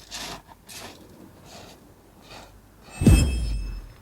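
A few short soft rustling or breathy noises, then a loud thump about three seconds in, with a low rumble that dies away in under a second.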